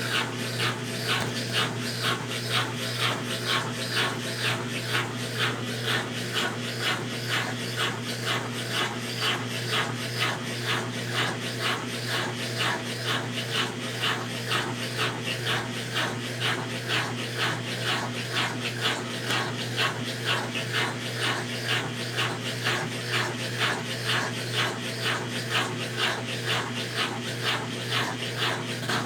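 Consul Facilite CWC10 10 kg washing machine in its wash stage, agitating a load of blankets: a rhythmic swish-swish of cloth and water about twice a second over a steady motor hum.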